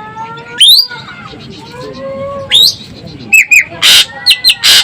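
Common green magpie (ekek keling, Sumatran form) calling: sharp rising whistles about half a second in and again at two and a half seconds, then a quick run of short notes and two loud harsh rasping bursts near the end. Softer, longer bird whistles carry on underneath.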